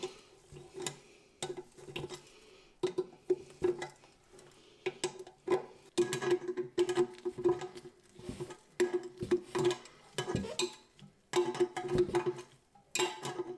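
A wrench tightening the nuts on a toilet's tank-to-bowl bolts: irregular runs of metallic clicks and clinks with short pauses between them.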